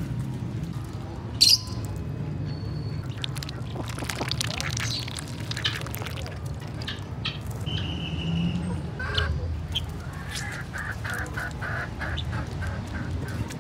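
Domestic ducks dabbling and splashing in a shallow puddle, with quacks and other poultry calls, and a rapid run of calls near the end. A sharp knock comes about a second and a half in, over a steady low hum.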